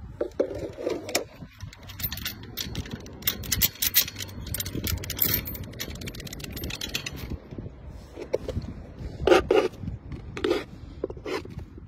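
A padlock and heavy metal chain being handled, clinking and scraping, with short sharp clicks and a louder cluster of taps near the end, over a low rumble.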